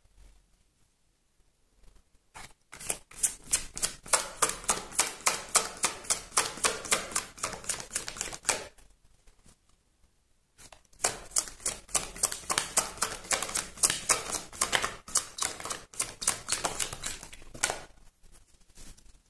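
A deck of tarot cards being shuffled by hand: quick, even card clicks at about five a second, in two bouts, the first starting about three seconds in and the second after a short pause near the middle.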